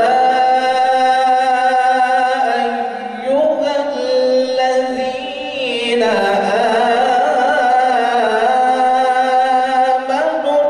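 A man reciting the Quran aloud in a melodic chanting style, through a microphone. He holds long notes that bend and step in pitch a few times.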